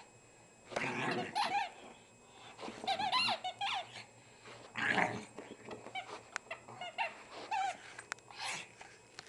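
Repeated high squeaks in short bouts every couple of seconds as a Pekingese mouths and chews a small toy cow.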